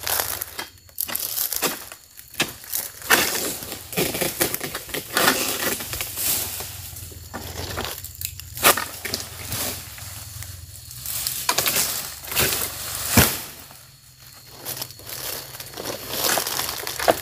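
Dry oil palm fronds rustling and crackling in irregular bursts as a long harvesting pole is worked up in the palm's crown to cut fruit, with one sharp knock late on.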